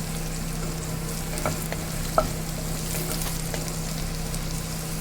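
Chopped onions frying in sesame oil in a pan, sizzling steadily while being stirred, with a few light clicks of the spoon against the pan.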